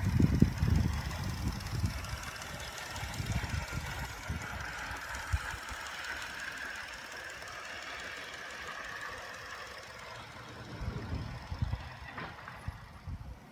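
Live steam model locomotive running on garden railway track: a rapid run of low beats and clicks, loudest in the first second, fading to a steady hiss, then building again about eleven seconds in.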